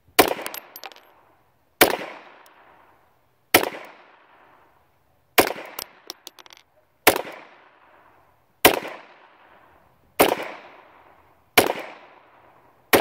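Ruger Mark II .22 LR semi-automatic pistol fired slowly in single aimed shots, nine in all, about one every 1.7 seconds, each shot trailing off in an echo.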